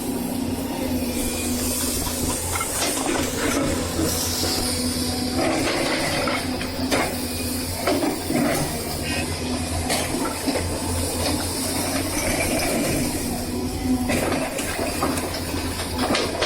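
Excavator working with a single-shank ripper: a steady diesel engine drone with a hiss over it, and scattered knocks and scrapes from the ripper in the ground.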